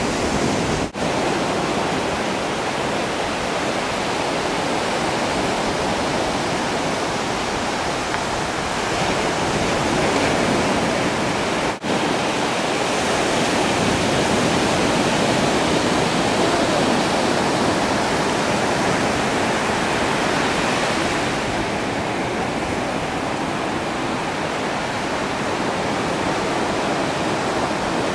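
Ocean surf breaking and washing onto the beach: a steady rushing roar, which cuts out briefly twice, about a second in and again about twelve seconds in.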